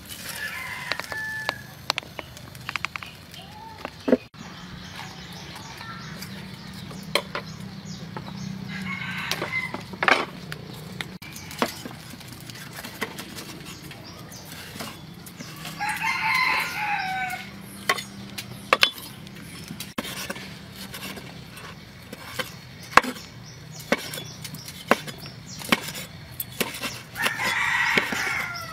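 Roosters crowing several times, each crow lasting about a second or so, over scattered sharp knocks of a blade chopping meat on a wooden cutting board.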